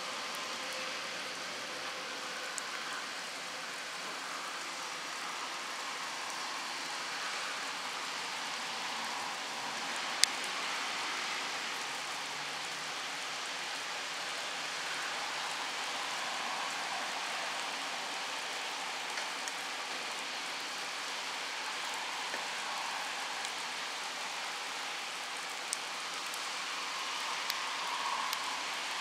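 Steady rain falling, with one sharp click about ten seconds in and a few fainter ticks later.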